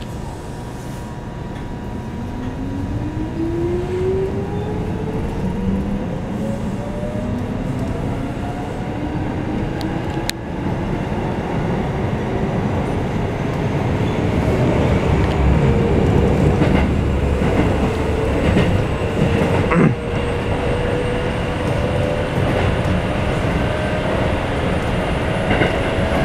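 Keikyu 1500-series steel-bodied electric train with field-chopper control, heard from inside the car as it pulls away and accelerates: the traction motor whine rises steadily in pitch over growing wheel and rail rumble. A couple of sharp clicks come through partway along.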